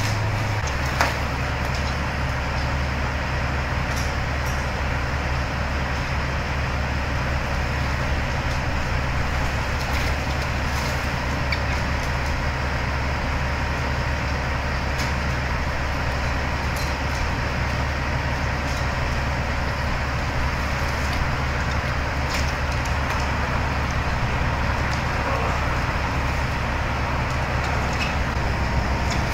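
A steady low engine drone with an even hiss over it, and a few faint knocks now and then.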